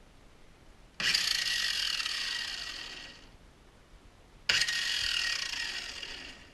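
Angle grinder with a general-purpose wheel, run in two short bursts. Each burst starts abruptly and fades away over about two seconds.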